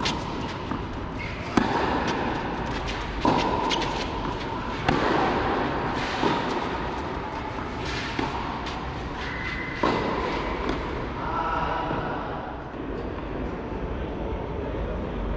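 Tennis rally: racket strings striking the ball about every one and a half to two seconds, each hit echoing briefly in a large covered hall. The hits stop about ten seconds in.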